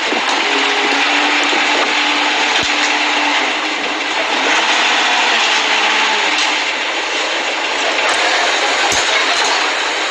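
Steady vehicle or machinery noise, with a faint hum in the first few seconds and a few light clicks.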